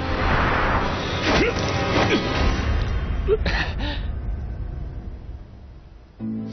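Fight-scene punching sound effects: a whoosh, then several sharp hits with short grunts, over dramatic background music. The hits stop about four seconds in, and the music fades down before it changes near the end.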